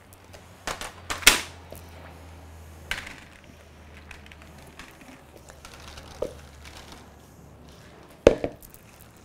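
Kitchen handling sounds: a few sharp knocks and clatters as dehydrator trays are set down on a wooden benchtop and cauliflower florets are tipped from a plastic bowl onto them and spread by hand. The loudest knocks come about a second in and near the end.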